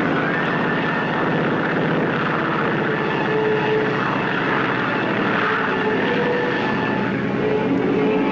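Avro Lancaster bomber's piston engines and propellers running in a steady drone with a fast, even pulse.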